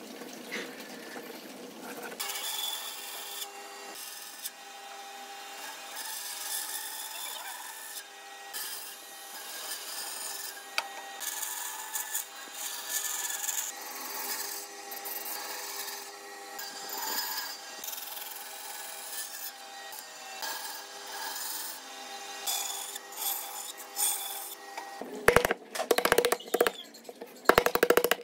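A bandsaw runs with a steady hum while its blade cuts into a thick block of wood, the hiss of the cut rising and falling as the wood is fed. About three seconds before the end come a run of sharp cracks and knocks as a chisel breaks the waste out between the saw kerfs.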